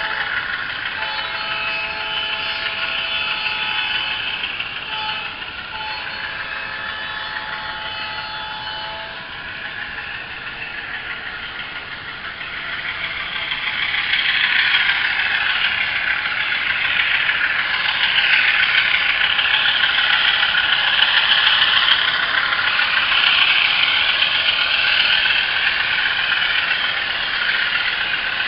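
Digital diesel locomotive sound effects of a GE U28C from an HO scale model's ESU LokSound decoder, played through the model's small onboard speaker. For the first nine seconds several steady tones sound together, then about thirteen seconds in a louder, even rushing noise takes over.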